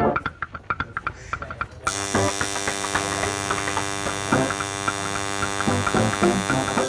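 Coil tattoo machine buzzing with a steady, even hum as it needles the skin; it stops right at the start and starts buzzing again about two seconds in.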